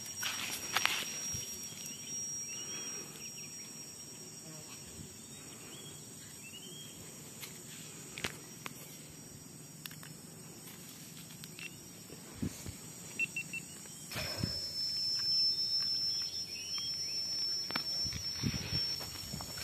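Outdoor ambience of insects giving a steady, high-pitched drone, with a few short bird chirps, and rustling footsteps on dry leaves near the start and again in the last few seconds.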